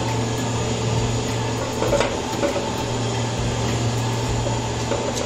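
Steady low machine hum of the ice candy plant's refrigeration machinery, with a faint knock about two seconds in.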